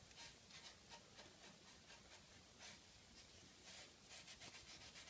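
Faint rubbing of a cloth rag wiping wood stain onto a wooden corner block, in short repeated strokes.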